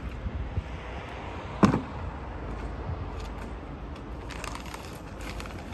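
A single sharp knock about a second and a half in as the emptied plastic bucket is set down on the asphalt, then light papery rustling as a bag of rapid-set concrete mix is picked up. Wind rumbles on the microphone.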